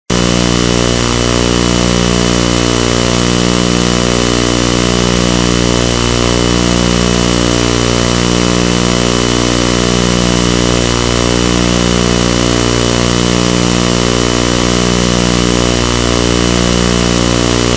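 A very loud, harsh electronic drone that starts suddenly out of silence and holds steady: many stacked tones from deep bass to high whine, with a slow pulse about every two seconds.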